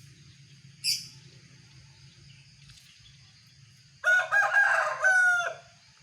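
A rooster crowing once, loud and drawn out over about a second and a half, near the end. A short, sharp chirp from a small bird comes about a second in, over a steady high insect drone.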